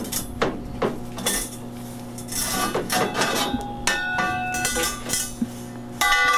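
Steel square tubing being handled and shifted into line: a run of metal-on-metal clanks, knocks and scrapes, several leaving a ringing tone, with a louder clang near the end.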